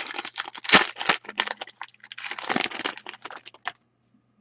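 A trading-card pack's wrapper being torn open and crinkled: a dense run of crackling and rustling that stops about three and a half seconds in.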